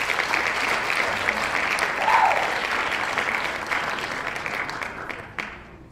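Crowd applauding, a dense patter of many hands clapping that fades out near the end.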